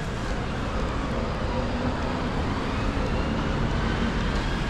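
Steady city street traffic noise, a continuous rumble of passing vehicles.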